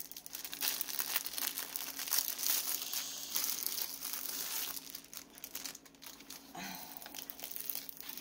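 Clear plastic wrapping around a rolled diamond painting canvas crinkling and rustling as it is handled and turned over.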